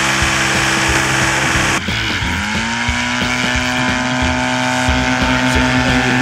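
Four-stroke microlight trike engine of about 75 hp running and driving its propeller. Near two seconds in the sound changes abruptly, then the engine rises in pitch and holds steady at high revs.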